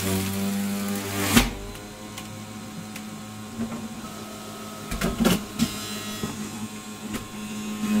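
Bosch 700 W centrifugal juicer running, its motor humming steadily, with a loud knock about a second and a half in and a few smaller knocks around five seconds as produce is pushed down the feed chute. The hum drops back in the middle while the produce is being fed and returns full near the end.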